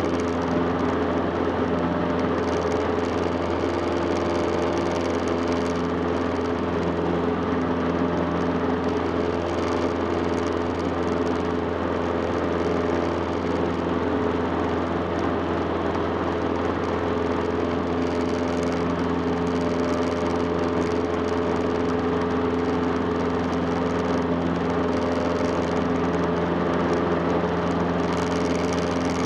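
Cessna 150's Continental O-200 four-cylinder engine and propeller droning steadily in level flight.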